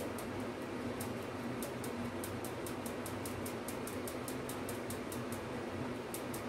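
Stir stick scraping and ticking against a small mixing cup as thickened epoxy resin is stirred, a quick, uneven run of light ticks over a steady background hum.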